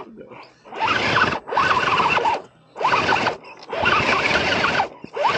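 An RC rock crawler's electric motor and geared drivetrain whining in short throttle bursts as it claws up a rock step. There are about five bursts with brief pauses between them, and the whine rises and falls within each one.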